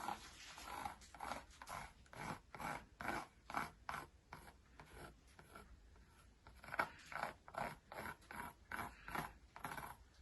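Pencil scratching on paper in repeated short back-and-forth strokes, about two a second: a tree being drawn and its bark coloured in.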